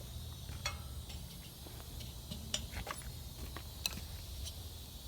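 Light metallic clicks and taps of the compressor's sheet-metal belt shroud being handled, scattered over a steady low hum.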